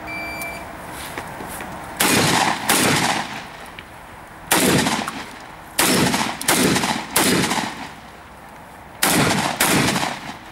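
A short electronic beep from the shot timer, then a shotgun fired eight times at an uneven pace: two quick shots, a pause, then single shots and pairs, each with a short echo. The pauses between groups are the shooter moving and reloading during a practical shotgun stage.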